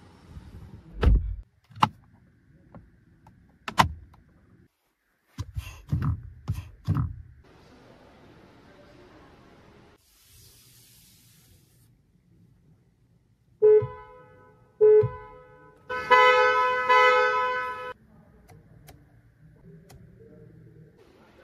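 Car horn of a Geely Xingrui sounded from inside the cabin: two short toots, then a held honk of about two seconds. Before that come several clicks and thumps from handling the door and its controls.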